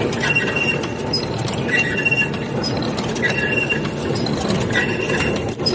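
CS-A barbed wire making machine running: a steady mechanical clatter with a short squeaky metallic chink that repeats about every one and a half seconds.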